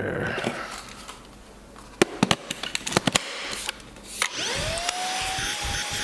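A few sharp plastic clicks as the INSE S610 cordless stick vacuum is handled. About four seconds in, its motor switches on with a whine that rises quickly in pitch as it spins up, then holds and keeps creeping slightly higher.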